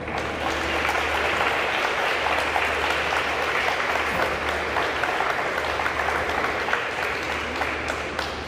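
Audience applauding: many hands clapping together, swelling in the first second, holding steady, then tapering off near the end.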